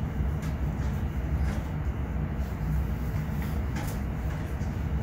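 Steady low hum and rush of data-center cooling equipment and fans. A few faint clicks come as a metal switch line card is handled in the chassis slot.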